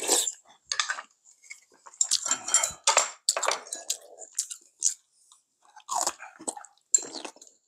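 Close-up eating sounds: people slurping hot soup and chewing, in irregular short wet bursts with brief pauses between.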